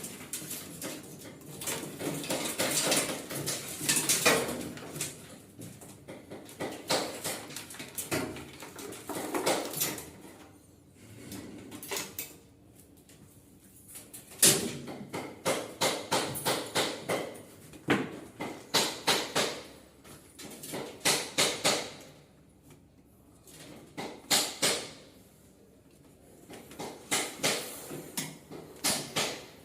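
Clicks and knocks of hand tools and plastic parts while an automatic washing machine is being taken apart, coming in runs of quick clicks a few times a second with quieter pauses between.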